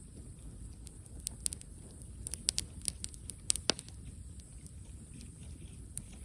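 Wood campfire crackling: irregular sharp pops, with a quick cluster of them around the middle.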